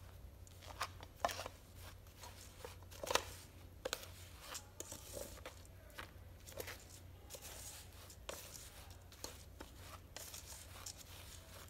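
Spatula stirring and pressing coarse ground cashew and milk powder in a steel mesh sieve: irregular gritty scraping and crunching with short scratchy clicks, a few of them louder, about a second and three seconds in.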